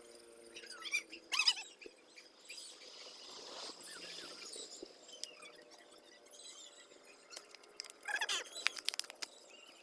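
Small birds chirping in quick, high, pitch-bending calls, clustered about a second in and again near the end, over a faint steady high whine.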